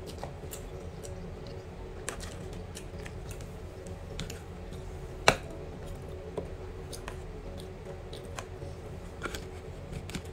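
Metal utensil clicking and scraping against a black plastic takeaway container of rice, in scattered small taps with one sharper click about five seconds in, over a steady low room hum.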